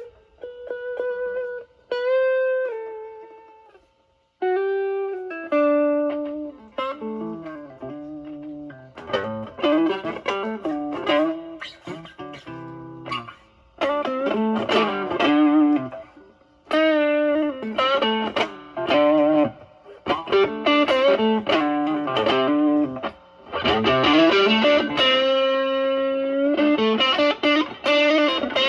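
Stratocaster electric guitar played through a Pro Co Brat distortion pedal (OP07 op-amp chip) into a Marshall Valvestate amp. It plays bluesy improvised lead lines with string bends: sparse single notes at first, a brief pause about four seconds in, then busier phrases and double stops.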